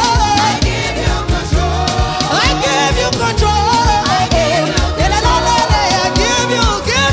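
Gospel praise music: a singer's melody sliding up and down over a band with bass and a steady drum beat.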